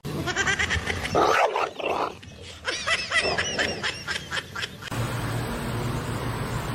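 A dog barking and yipping in quick succession, the calls coming several times a second near the middle. It cuts off suddenly about five seconds in to a steady low rumble.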